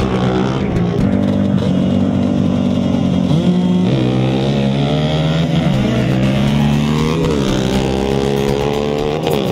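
Racing quad (ATV) engines revving hard at full throttle down a dirt drag strip, mixed with background music. The pitch climbs in several upward sweeps.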